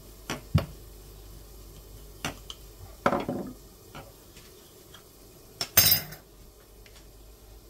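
A wooden rolling pin and a knife knocking and scraping on a countertop as samosa dough is rolled and cut: a few sharp knocks, a short scraping stroke about three seconds in, and the loudest clatter just before six seconds.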